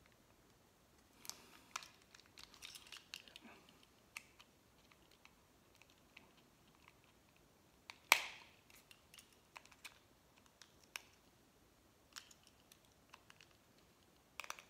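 Faint scattered clicks and short scrapes of a utility knife blade working against the plastic key fob housing as the transponder chip is pried loose, with one sharper click about eight seconds in.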